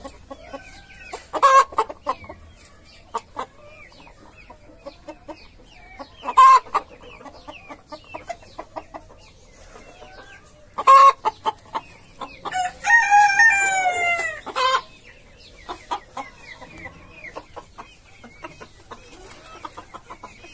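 Chickens calling. Short, sharp, loud calls come about every five seconds, and a rooster crows once, a falling call of about two seconds, about two-thirds of the way through. Soft clucking runs in between.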